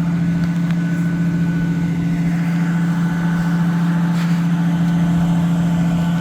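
A truck engine running steadily at one constant speed, a loud even hum that does not rise or fall.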